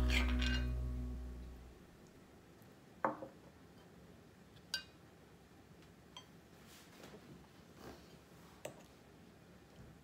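Acoustic guitar music fading out over the first two seconds, then a metal serving spoon working in a cast-iron skillet of gratin: a handful of soft clinks and taps against the pan and plate, the loudest about three seconds in.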